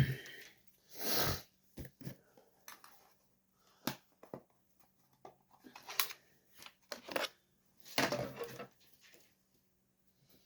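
Scattered clicks, clinks and scrapes of tools and chainsaw parts being handled on a workbench, with a sharp knock at the very start and a longer scrape around eight seconds in.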